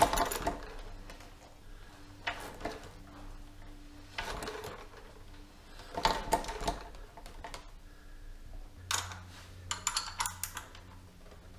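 The front forks of a Ducati 900SS bevel being bounced by hand, a short clatter of clicks and knocks with each push about every two seconds, to let the loosened fork leg settle before it is clamped. Near the end comes a quicker run of small metallic clicks.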